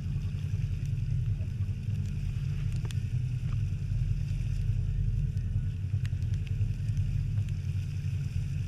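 Fishing boat running through choppy sea: a steady low rumble of the motor, wind and water rushing against the hull, with a few faint knocks.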